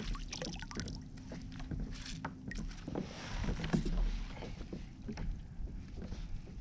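Water lapping at a kayak hull, with scattered light clicks and knocks as fishing gear is handled on board.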